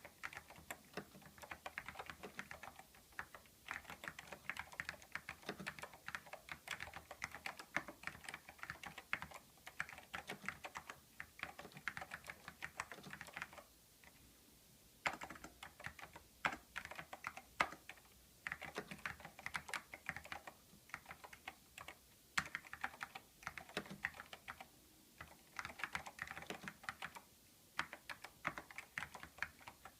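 Typing on a Silicon Graphics keyboard with salmon Alps switches and beige keycaps: rapid, continuous key clicks, with brief pauses about halfway through and again near 25 seconds in.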